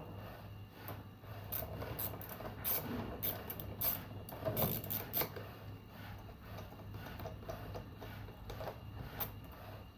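Irregular clicks and light knocks from washing-machine parts and hand tools being handled during disassembly, over a steady low hum. The clicks come most thickly in the middle.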